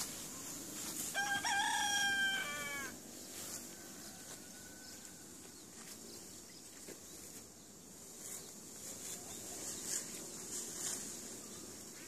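A rooster crowing once, a single call of nearly two seconds starting about a second in, dropping in pitch at its end.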